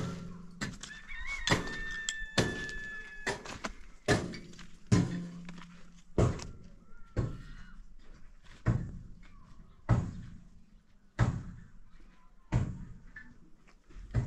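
A tool striking wood, about a dozen heavy thunks roughly a second apart. Between about one and a half and three seconds in, a brief high steady tone sounds over them.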